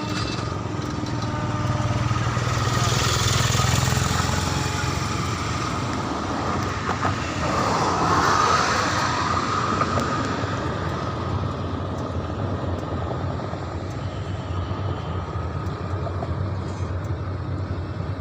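Vehicles passing steadily, with two louder passes about three seconds and eight seconds in.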